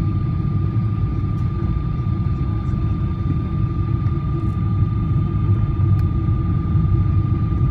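Cabin noise of a Boeing 777-300 airliner descending to land: a steady low rumble of the engines and airflow, with a steady high whine running through it.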